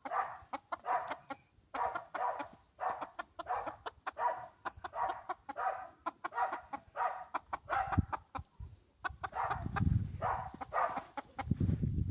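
A hen clucking over and over in a steady run of short calls, about one or two a second. Low rumbling noise comes in near the end.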